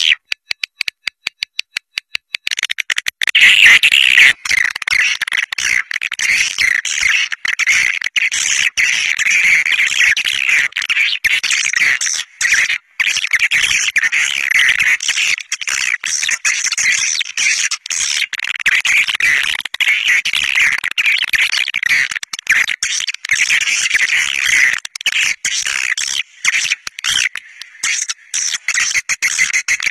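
Swiftlet lure calls, the flock-calling sound played to draw edible-nest swiftlets into a nesting house: a rapid run of clicks for about the first two and a half seconds, then a continuous, dense, high-pitched chattering twitter broken by constant short gaps.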